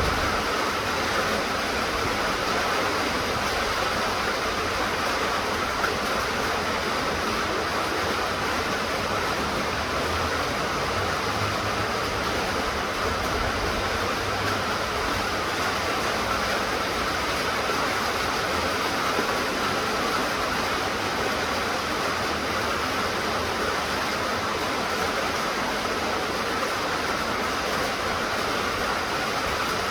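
Steady rain falling, a continuous even hiss with no breaks or separate drops standing out.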